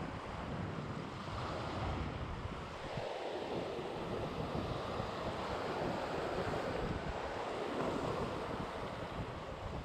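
Sea waves washing against a rocky shore, with wind buffeting the microphone in low rumbles.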